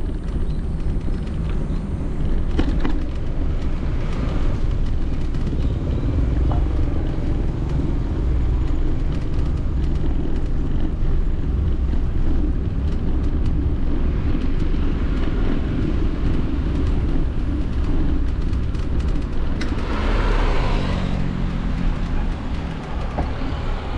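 Steady rumble of wind and road noise on an action camera's microphone while riding a bicycle, with scattered light clicks and a brief louder rush about twenty seconds in.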